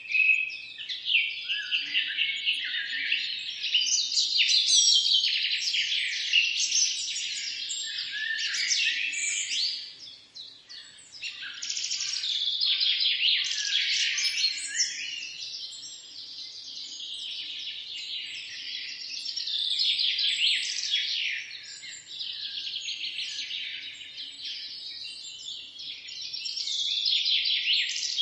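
Several songbirds singing and chirping at once, a dense chorus of quick, high, overlapping notes and trills that thins out briefly about ten seconds in.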